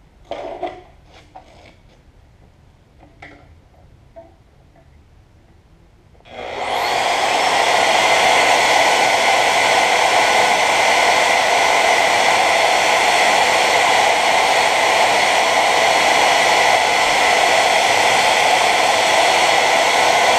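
A few knocks and clicks in the first few seconds, then about six seconds in a portable bandsaw starts and runs steadily, cutting hardened steel, which the saw doesn't like.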